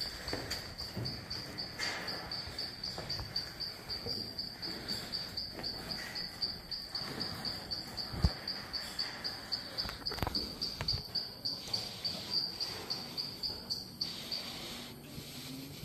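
Cricket chirping steadily on one high pitch, several chirps a second, stopping about a second before the end. A few faint knocks are heard along the way, with one sharp knock about eight seconds in.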